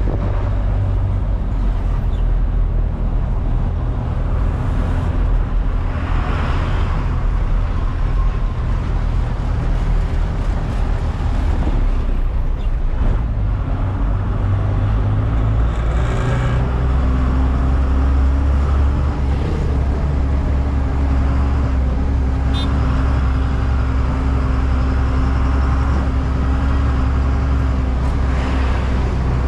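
Tata 1613 container truck's diesel engine running steadily as the truck drives along the highway, with road and traffic noise. The engine note shifts lower and firmer about halfway through.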